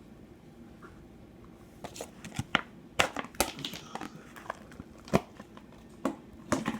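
Slime being squeezed and worked by hand, giving irregular sharp crackles and pops that cluster in the second half.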